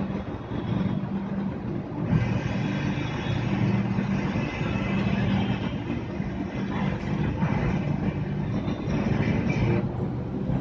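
Mumbai Monorail train running along its elevated guideway, heard from inside the front cabin: a steady running rumble with a low hum. A higher whine comes in about two seconds in and fades near the end.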